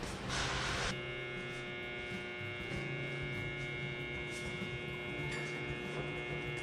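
A short rustling hiss, then about a second in a steady electrical hum with many overtones switches on and holds.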